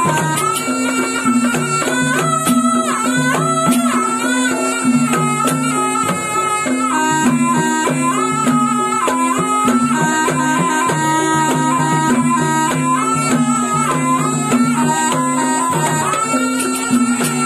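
Live ebeg accompaniment: a slompret, the Javanese double-reed shawm, plays a melody in long held notes that step up and down, over gamelan percussion with a repeating low two-note pattern and steady drum strokes.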